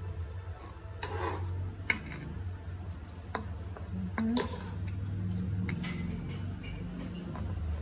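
Kitchenware being handled: dishes and utensils knocking and clinking now and then, the sharpest knock about two seconds in, over a steady low hum.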